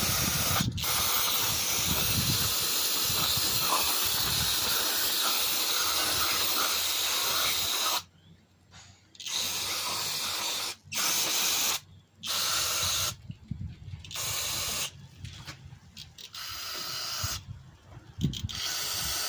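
Aerosol can of carbon intake cleaner spraying into the lower intake manifold to clean off carbon. One long spray of about eight seconds, then a string of shorter spurts of about a second each.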